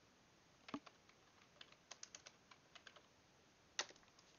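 Faint computer-keyboard typing: scattered single keystrokes, with a sharper click near the end.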